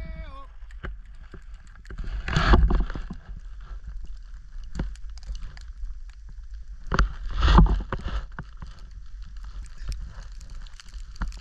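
Wind buffeting a camera microphone, rising into two gusts of rumbling noise a few seconds apart, with small knocks from the camera pole being handled.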